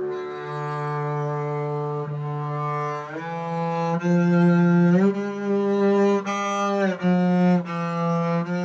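Upright bass (double bass) played arco with a French bow: a slow line of long, sustained bowed notes that step to a new pitch every second or so.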